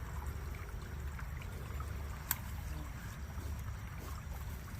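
Steady low outdoor rumble with faint trickling water, and one sharp click a little over two seconds in.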